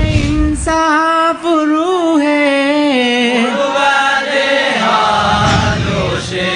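A single voice singing a slow, ornamented melody, holding long notes that bend up and down, with a low rumble underneath at the start and again about five seconds in.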